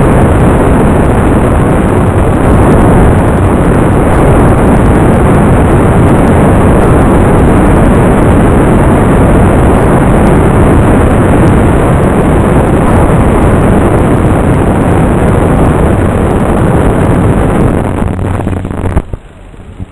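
Loud, steady rushing noise of wind and motor in flight, picked up by an FPV aircraft's onboard camera. It cuts off abruptly about a second before the end.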